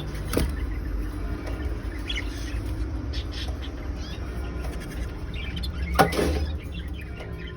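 Budgerigars chattering: short, scattered, high chirps and warbles over a low steady hum, with one loud sharp sound about six seconds in.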